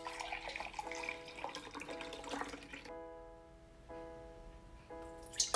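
Milk poured in a stream into a glass measuring jug for about three seconds, over background music with held notes. Just before the end a second pour starts, into a stainless steel pot.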